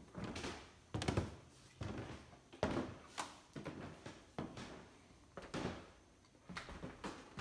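Footsteps going up wooden stairs and along a hardwood floor: a series of dull thuds, roughly one a second.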